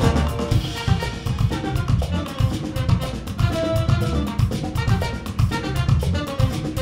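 Live band playing: a steady drum-kit beat under electric guitars and keyboards, with a trumpet playing the lead line.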